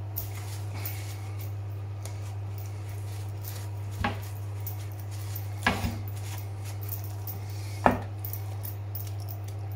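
A few light knocks and taps of hands, a ring and a plucked partridge against a glass chopping board while the bird is patted dry with paper towel and turned over. A steady low hum sits beneath them.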